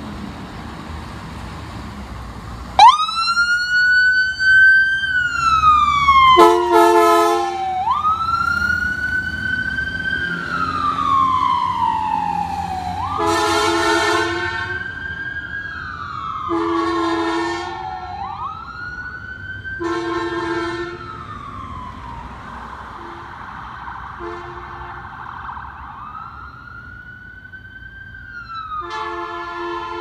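An ambulance's electronic siren switches on about three seconds in and wails, each cycle a quick rise and a slow fall, punctuated by several blasts of a train horn fitted to the ambulance. Both grow fainter as the ambulance drives off, with a last horn blast near the end.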